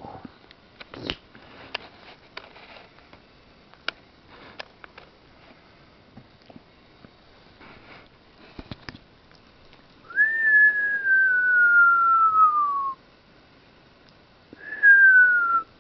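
A person whistling two long notes, each sliding slowly down in pitch: the first lasts about three seconds, the second is shorter and comes near the end. Before them are faint clicks and rustles of a puppy chewing a sock on a blanket.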